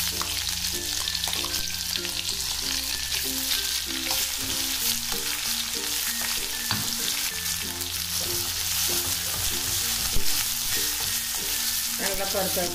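Ground green coconut-and-coriander masala paste sizzling and frying in hot oil with curry leaves in an aluminium kadhai as a spoon stirs it, with one sharper knock about ten seconds in. Soft background music plays underneath.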